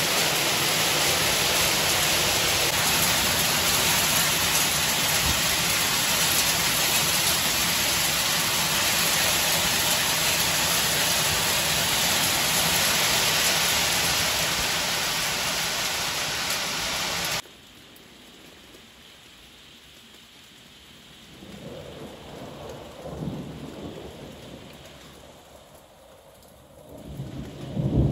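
Hail and heavy rain pelting steadily on roofs and pavement, cutting off suddenly about 17 seconds in. Then quieter rain with low rolls of thunder, a louder rumble of thunder breaking right at the end.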